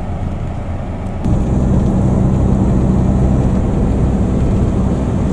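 Engine and road noise inside a moving pickup truck's cab: a steady low hum that steps up louder about a second in and then holds steady.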